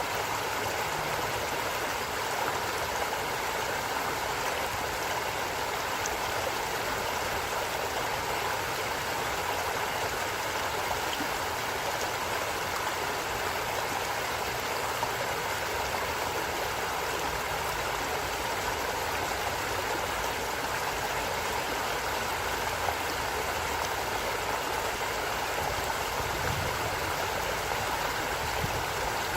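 A stream of water flowing steadily over stones, an even rushing and babbling.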